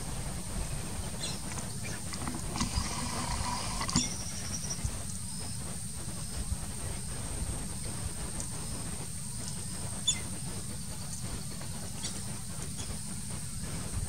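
Outdoor pond ambience: a steady low rumble with a thin high hiss, and a few faint distant bird chirps and calls in the first four seconds.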